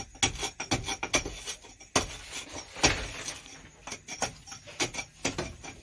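Irregular clinking and knocking of hard objects being handled, a few sharp knocks a second.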